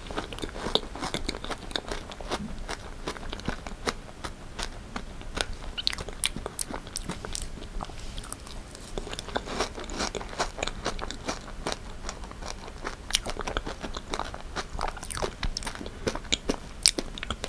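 Close-miked chewing of strawberry rare cheesecake: many small, irregular wet mouth clicks and smacks, with another bite taken about halfway through.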